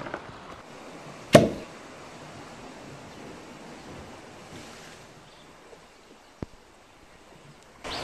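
Steady wash of sea surf, with one sharp knock about a second and a half in; the wash grows fainter about five seconds in.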